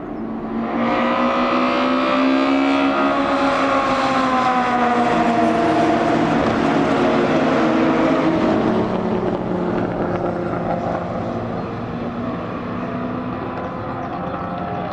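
Racing car engine at speed passing by: it comes in loud about a second in, its note falls slowly as it goes by, and it fades over the second half.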